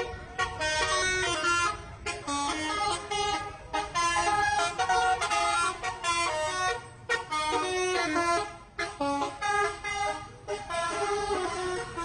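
Bus telolet horn, a set of multi-tone air horns, playing a tune of quick stepped notes with short breaks every second or two.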